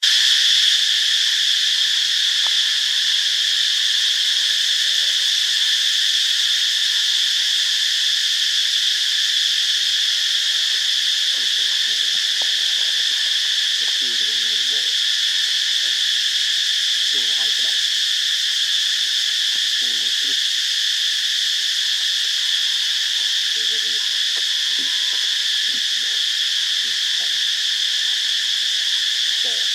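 Steady, high-pitched chorus of insects such as crickets or cicadas, unbroken throughout. A few faint, brief lower-pitched sounds come through in the middle and near the end.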